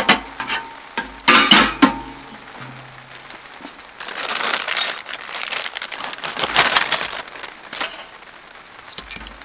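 Metal parts of a tent stove clinking and clanking as they are lifted out of the stove's body, sharpest in the first two seconds. Then a plastic bag rustles twice, around the middle.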